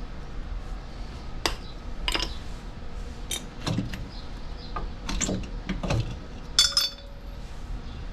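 Metal clinks and clanks of drum brake shoes and their springs and hardware being worked off the backing plate, with a few duller knocks. The loudest is a sharp ringing clink about six and a half seconds in.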